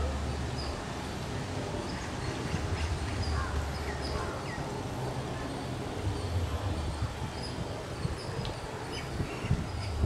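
Birds calling outdoors: many short, high chirps repeating, with a few short falling calls, over a steady low rumble.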